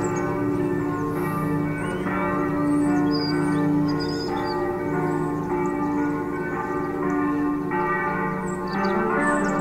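Church bells pealing, several bells struck one after another and ringing on over each other in long overlapping tones.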